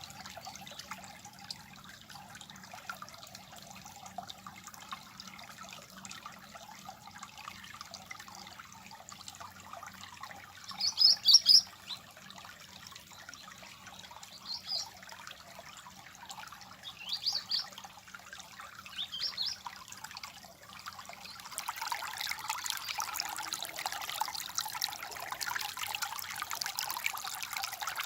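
Small stream trickling and babbling steadily, with a bird giving short high chirps in four bursts around the middle, the first the loudest. About three quarters of the way through the water turns louder and fuller.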